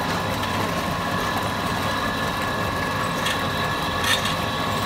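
Motor-driven rice-dough roller machine running steadily, a hum with a steady whine, as its two steel rollers press rice dough into thin sheets. A couple of light knocks come in the second half.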